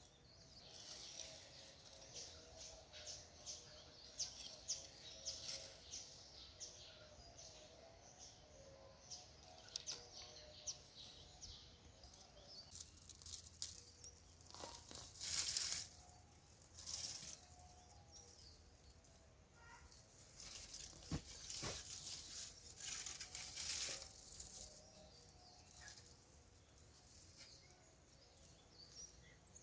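Irregular rustling, scratching and crinkling of soil and dry potato foliage as potatoes are dug out of a raised bed by hand and with small hand tools, with louder bursts of rustling near the middle and in the second half.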